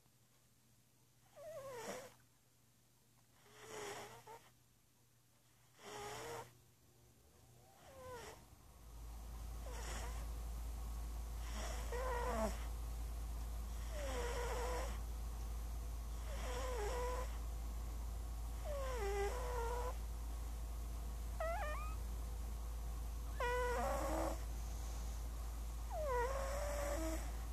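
Sleeping cat snoring: a short squeak on each breath that glides down in pitch, repeating about every two and a half seconds. A steady low hum comes in about a third of the way through.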